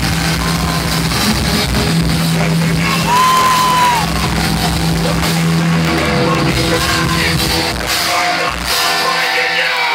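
A thrash metal band playing live at full volume: distorted guitars, bass and drums. A low note is held for the first six seconds, and a single high guitar note slides up, holds and falls away about three seconds in.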